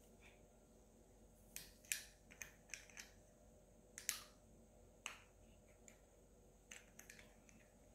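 Faint scattered clicks and light taps of small metal parts being handled, as a bearing puller is worked into a Novarossi Bonito nitro model engine to grab its bearing. The clicks come thickest in the first half and thin out toward the end.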